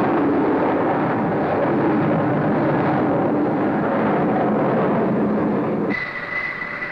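Jet aircraft at full power during a steam-catapult launch and climb-out: a loud, steady rushing with a low tone slowly sinking. About six seconds in it cuts off abruptly to a quieter jet engine's high, steady whine.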